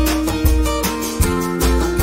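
Background music with a steady beat and held notes, changing chord about a second in.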